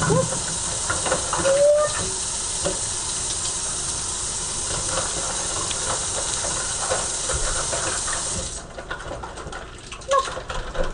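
Kitchen tap running steadily into the sink while a pan is washed, as a steady hiss of water; the water is shut off about eight and a half seconds in, leaving a few faint clicks.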